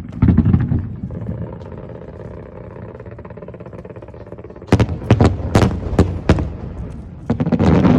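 Aerial fireworks: a deep boom just after the start, a rumble through the middle, then a quick string of sharp cracks about halfway through, giving way to dense crackling near the end.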